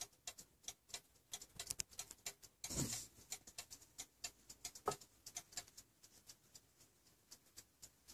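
Antique fusee mantel timepiece ticking quickly and steadily, several ticks a second. A brief louder noise breaks in about three seconds in, and a sharper click near five seconds.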